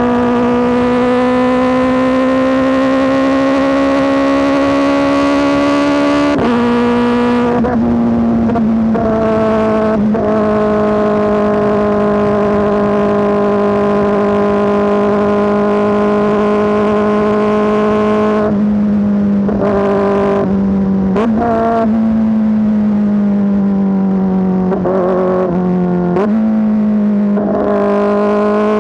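Kawasaki ZX-4RR's 399 cc inline-four running through an SC-Project S1 exhaust while under way, high-pitched and loud. The revs climb for about six seconds and drop at a gear change, then hold steady. Further gear changes come past the middle, the revs sink, and they rise again near the end.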